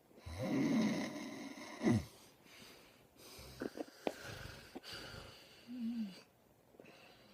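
A person snoring loudly: one long snore starting about half a second in and ending in a sharp snort near two seconds, then quieter, uneven breaths and a short snort near six seconds.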